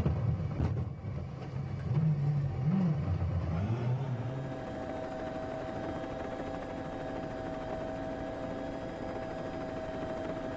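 Rally car engine heard from onboard, revving up and down for the first four seconds. It then changes abruptly to a quieter, steady hum with a high whine held at one pitch.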